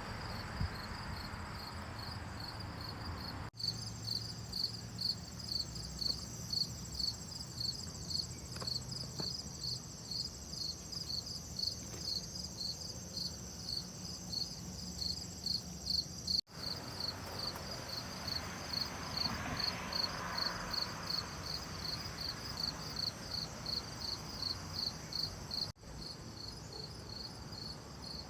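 A cricket chirping steadily, a short high-pitched chirp about twice a second, broken off abruptly three times.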